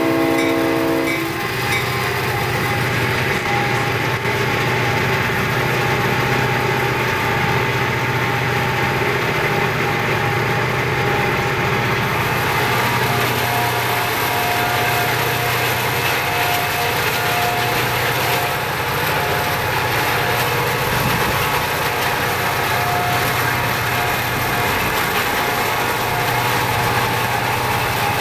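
A freight train's diesel locomotive horn chord ends about a second in. After that the locomotives and rolling freight cars rumble steadily, heard from a car pacing the train, mixed with the car's road and wind noise.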